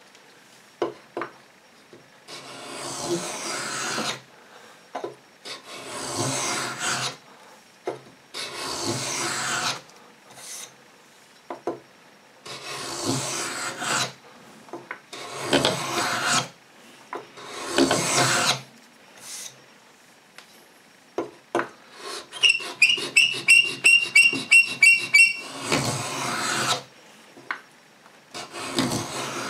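Lie-Nielsen No. 66 beading tool (scratch stock) scraping along a hard maple strip in about nine repeated strokes of a second or two each, a dry rasping scrape with short pauses between strokes. One longer stroke about three-quarters of the way through carries a rapid, high-pitched rattling squeak.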